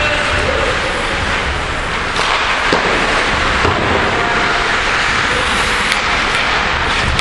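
Ice hockey rink noise during play: a steady, loud rush of noise with a few faint knocks.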